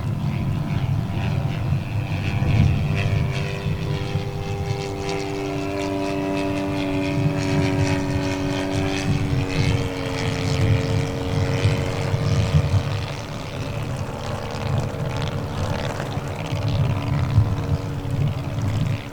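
Large RC scale biplane's 85 cc four-stroke engine running in flight, its propeller drone slowly shifting in pitch as the plane passes and changes throttle. A heavy low rumble of wind runs under it.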